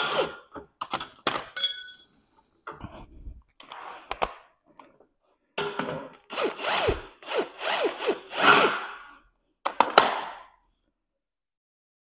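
Workshop handling of metal parts and tools: scattered knocks and one short ringing metal clank, then a run of scraping or rubbing strokes and a final sharp knock.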